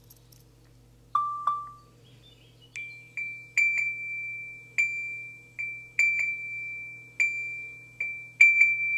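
Soundscape app's audio beacon playing from an iPhone speaker. Two short lower chime notes come about a second in. From about three seconds a quick, uneven series of short ringing pings follows, all on one higher pitch.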